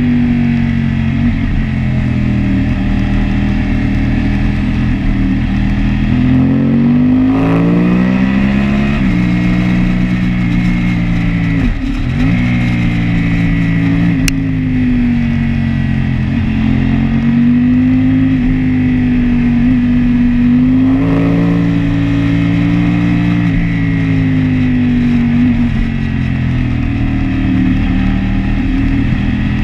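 Motorcycle engine at speed, heard from the bike itself on a race track, its revs rising and falling through the corners with a sharp drop and climb near the middle. A single short tick cuts in about halfway through.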